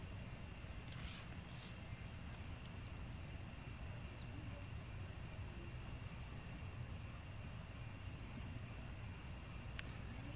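Faint, regular high-pitched insect chirping, about two to three short chirps a second, over a steady low hiss, with a couple of faint clicks.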